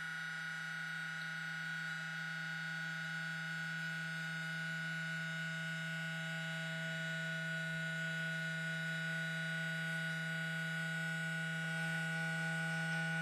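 Small brushed vibration motor taken from a vibrating toothbrush, buzzing at one steady speed as it shakes a foam boat hull in water; a steady hum that holds one pitch throughout. This is the speed at which the hull's vibration gives forward motion.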